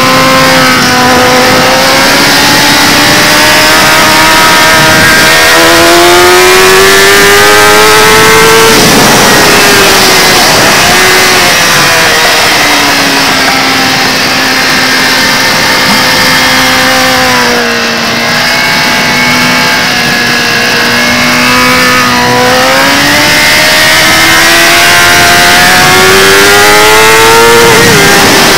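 Kawasaki Ninja ZX-10R's inline-four engine at racing speed, heard on board over a constant rush of wind. Its pitch climbs under throttle and drops sharply about nine seconds in and again near the end, with a long, nearly steady stretch in between.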